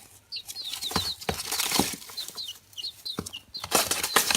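Baby chicks peeping: a quick run of short, high, downward-sliding peeps, several a second, mixed with rustling and light tapping from the chicks moving about.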